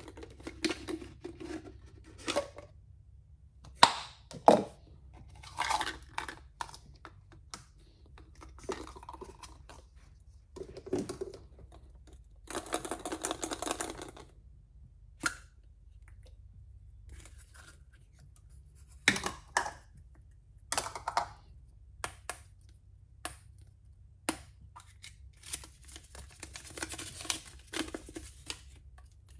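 Hollow plastic surprise eggs being handled and pulled apart: irregular clicks, knocks and rubbing of plastic shells, with several longer stretches of rustling. Near the end, a paper banknote is crinkled and unfolded.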